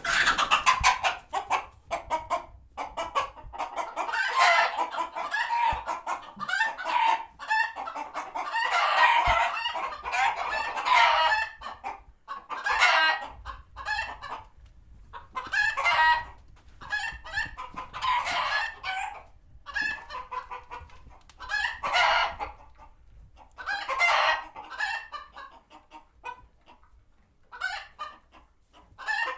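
A flock of chickens squawking and clucking in alarm at a passing hawk. The calling starts abruptly and is dense and continuous for about the first twelve seconds, then comes in separate bursts every two or three seconds.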